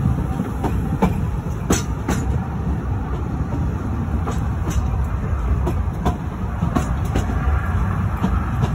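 Narrow-gauge railway carriage rolling along the track: a steady low rumble with irregular sharp clicks and clunks from the wheels and running gear.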